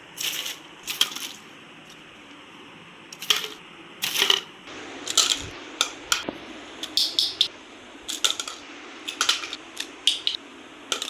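Small toys being tossed into a bag one after another, clattering in a dozen or so irregular, sharp knocks.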